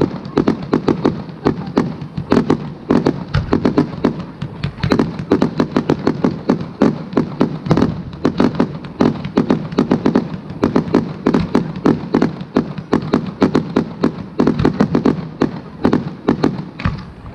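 Fireworks display: aerial shells and cakes going off in a dense, steady run of bangs, several a second.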